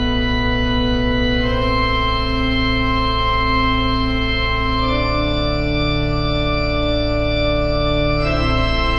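Slow instrumental music of long held chords over a steady low drone. The chord changes about a second and a half in, again about five seconds in, and once more near the end.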